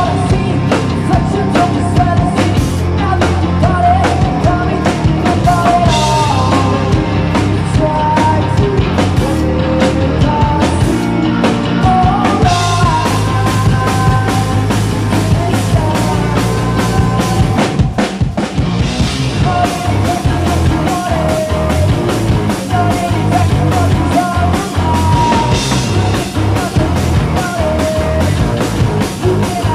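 A rock band playing live: electric guitars and a drum kit driving a steady beat, with a sung lead vocal over them.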